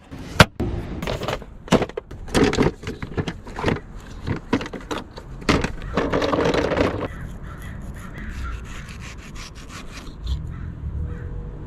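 A run of knocks and clicks, thinning out after about seven seconds into a quieter stretch.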